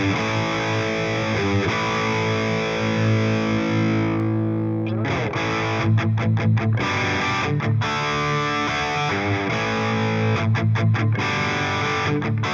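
Distorted electric guitar played through the Anvil amp-simulation plugin: held chords ringing out, one fading about four seconds in, between quick runs of short muted chugs.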